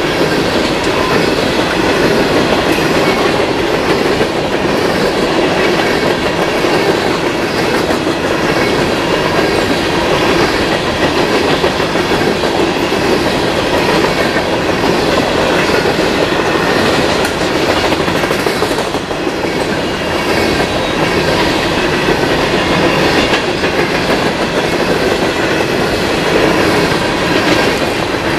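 Empty steel coal hopper cars of a long freight train rolling past, their wheels clattering over the rail joints in a steady, regularly repeating rhythm.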